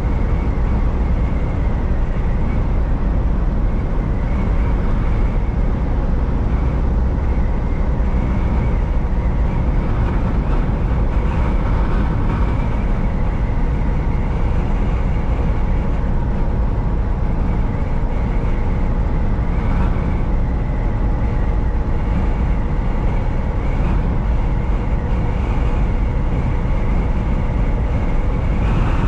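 Semi-truck driving on the highway: a steady engine drone and road rumble with a faint, constant hum above it, unchanging throughout.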